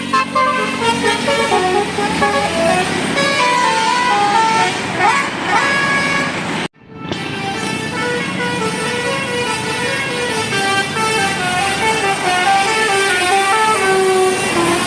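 Tour bus 'telolet basuri' musical horn playing a tune of held notes that step up and down in pitch, cut off abruptly about halfway through and then resuming.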